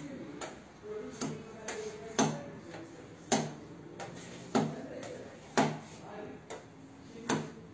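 Irregular sharp clicks, about a dozen, each with a short ring, from hand work with a small tool or abrasive on a car bonnet's paintwork where stone chips are being repaired.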